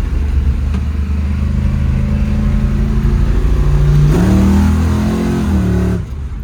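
Holden HQ's engine under hard acceleration, its pitch slowly climbing, then rising and getting louder about four seconds in, before the driver backs off sharply near the end.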